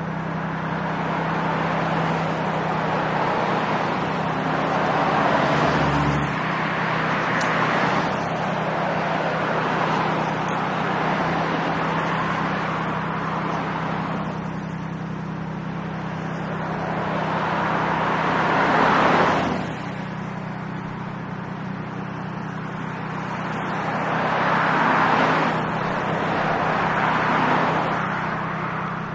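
Road traffic on a multi-lane street: cars passing close by one after another, each a swell and fade of tyre and engine noise, the loudest about two-thirds of the way through. A steady low hum runs underneath.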